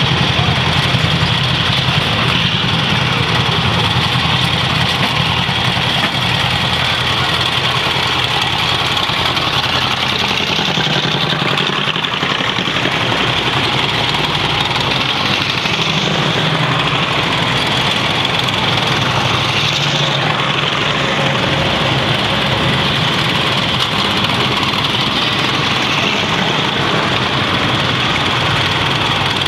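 Engines of a column of tracked armoured vehicles running steadily as the vehicles drive past at low speed.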